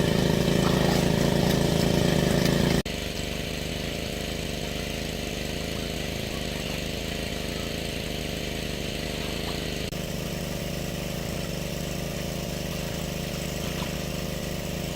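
Small engine running steadily at a constant speed. It drops suddenly in loudness just under three seconds in, then carries on unchanged.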